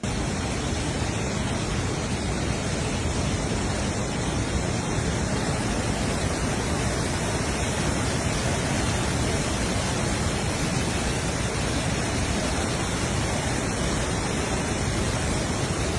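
Floodwater rushing past in a steady, unbroken noise of churning water.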